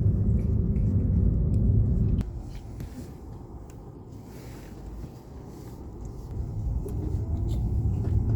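Low rumble of a train. It is loud, cuts down suddenly about two seconds in, and builds back up over the last few seconds.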